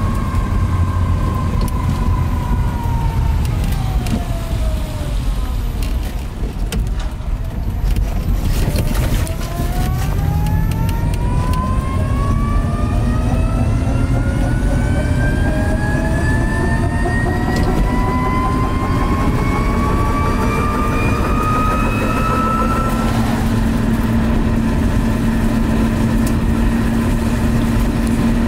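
Electric motor of a ZEV T3-1 trike whining inside the cabin. The whine falls as the trike slows over the first six seconds, then climbs for a long stretch as it accelerates, and levels off to a steady tone near the end. Under it runs a constant low rumble of the tyres on the road.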